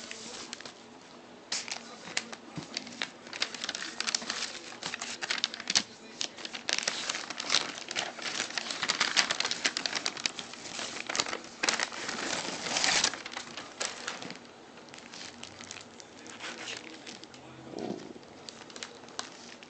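Plastic and paper packaging crinkling and rustling as a package is unwrapped by hand. The crackling is dense and irregular for most of the first two-thirds, then thins out to occasional handling noises.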